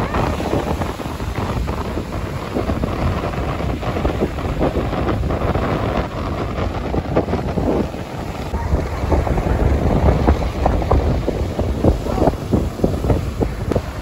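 Strong wind buffeting the microphone in uneven gusts, over waves breaking and washing up a sandy beach.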